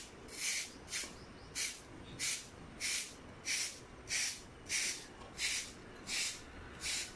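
Short stick broom sweeping the dusty road surface in quick, even strokes, a dry swish about every two-thirds of a second, eleven or so in a row.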